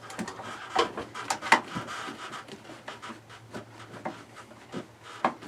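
Scattered light clicks, taps and rubbing of plastic parts being handled as a roof vent fan's plastic garnish and screen are worked loose, over a faint steady low hum.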